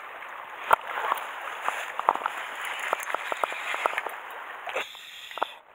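Sea water washing against a rocky shore, with a sharp knock about a second in and a run of short clicks a little later. The sound cuts off abruptly near the end.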